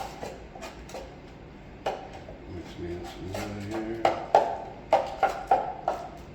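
Drywall tools and materials being handled: a run of short clicks and knocks, thickest about four to six seconds in.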